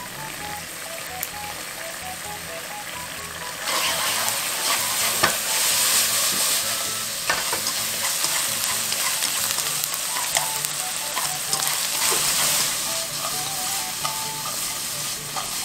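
Diced pressed tofu sizzling in a hot nonstick wok in sesame oil with freshly added soy sauce paste, stirred with wooden chopsticks that click against the pan. The sizzle gets louder about four seconds in.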